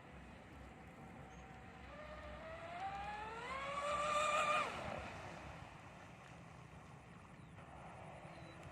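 Twin 3660 3300kv brushless motors of a 72 cm RC catamaran whining. The pitch and loudness rise for about two and a half seconds, then drop away suddenly.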